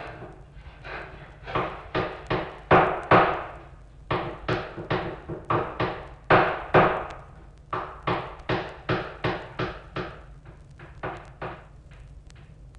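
A run of sharp knocking blows, about two to three a second and uneven in strength, each with a brief ring, ending a little before the close and leaving a faint steady hiss.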